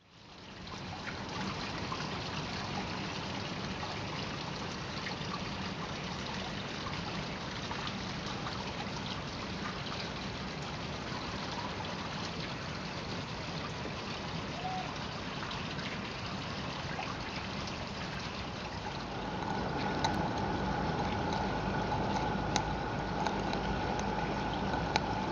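A steady hiss with a trickling sound. About two-thirds of the way in, a 16mm-scale live steam locomotive comes close: the sound grows louder, a steady tone joins it, and the wheels click now and then on the track.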